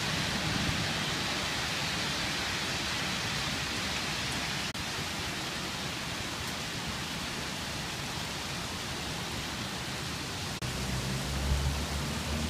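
Fairly hard rain falling on a city, a steady, even hiss. About two-thirds of the way in, a low rumble of traffic joins it.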